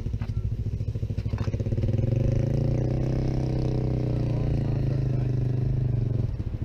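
A motor vehicle's engine running close by, its pitch rising over the first couple of seconds and then holding steady before stopping suddenly near the end.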